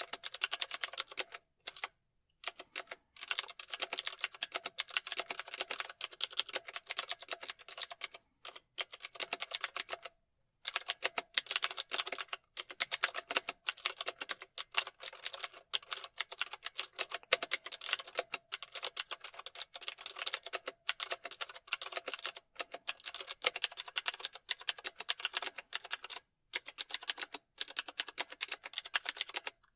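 Computer keyboard typing: rapid key clicks in continuous runs, broken by a few short pauses of about half a second.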